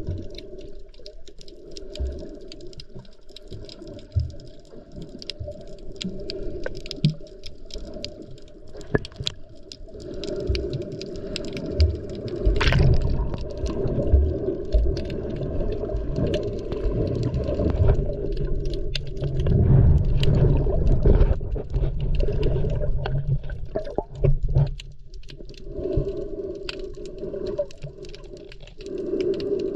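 Muffled underwater sound of water moving around a camera, with many scattered clicks and knocks. It grows louder and busier from about 12 seconds in until about 22 seconds.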